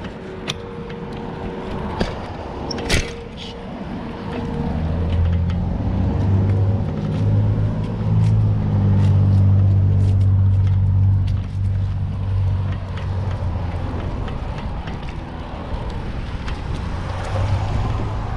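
Road traffic: a car engine's low hum builds about four seconds in, is loudest in the middle and eases off, over steady road and wind noise, with a few sharp knocks in the first few seconds.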